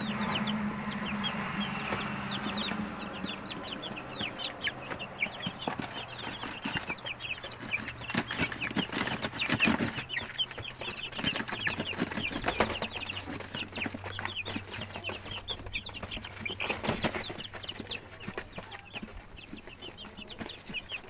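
A pen of young chicks peeping continuously, many short, high, falling peeps overlapping one another, with a few sharp knocks in between.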